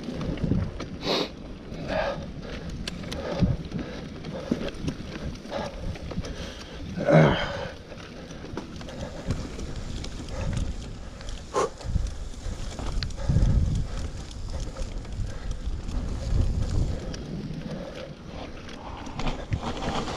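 Mountain bike riding over a bumpy dirt singletrack: tyres rolling on dirt with a steady rumble, and the bike rattling and knocking over the bumps. A brief louder sound stands out about seven seconds in.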